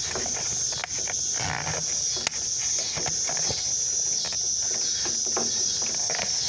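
Steady high chirring of insects, with small plastic clicks and rubbing as a tail-light bulb socket is twisted and wiggled in its housing; one sharp click a little over two seconds in.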